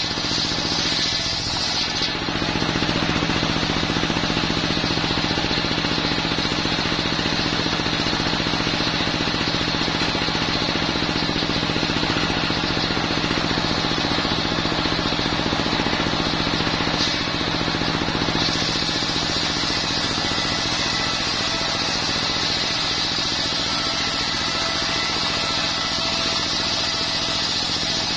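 Homemade circular sawmill driven by a single-cylinder diesel engine running steadily. The blade cuts coconut timber at the start and again from about 18 seconds in, adding a higher, hissing cutting noise over the engine.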